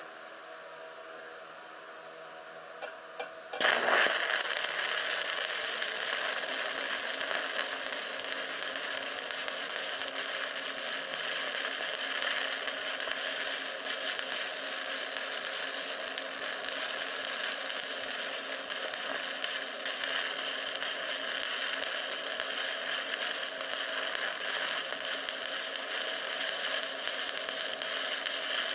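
Stick (arc) welding: a couple of faint scratch clicks, then the arc strikes about three and a half seconds in and runs on as a steady crackling hiss while a stainless-steel rod lays a weave bead on a railroad-track anvil. Before the strike there is only a steady hum.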